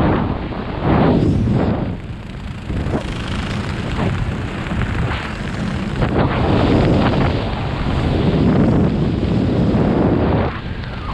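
Wind buffeting the camera microphone during a parachute canopy descent: a loud, rumbling rush that swells and dips, easing briefly about two seconds in and again near the end.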